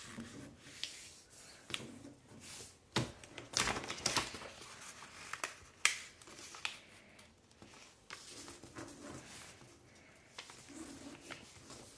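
Paper being folded by hand: soft rustling and creasing, broken by scattered short crinkles and taps. The strongest come around four and six seconds in.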